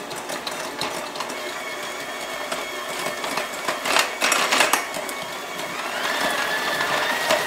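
KitchenAid electric hand mixer running steadily, its beaters creaming butter, sugar and orange zest in a glass bowl. A few brief clatters come around the middle, and the motor's whine rises a little about six seconds in.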